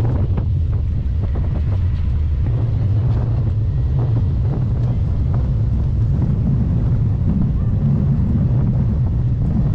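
Wind buffeting the microphone of a camera on a moving bicycle: a steady low rumble with a few faint clicks over it.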